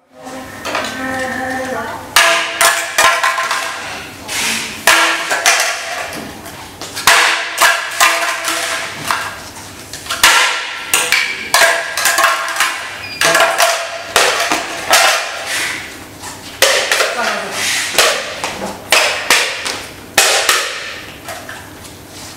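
Plastic self-balancing scooter shell being kicked and stamped on across a hard floor in an abuse test. It gives a run of sharp knocks and clatters, about one every half-second to second, starting about two seconds in.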